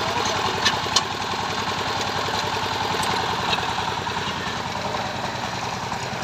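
A 14 hp power tiller's engine running steadily at a fast, even beat, with two light clicks just under a second in.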